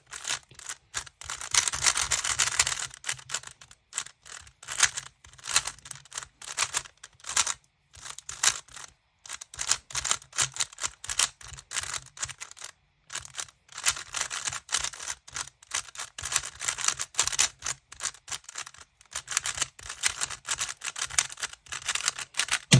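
GAN Maglev 3x3 speedcube being turned fast in a solve: rapid strings of light plastic clicks and clacks as the layers snap round, in quick bursts broken by short pauses.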